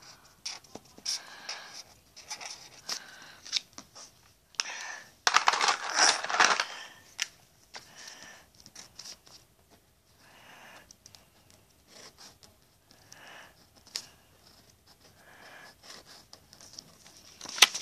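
Pencil writing on paper: short, irregular scratching strokes with pauses between words, and a louder rustle of the paper sheet about five seconds in.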